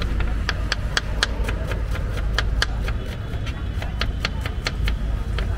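Knife blade chopping red onion on a plastic cutting board: quick, even taps at about four a second, over a steady low background rumble.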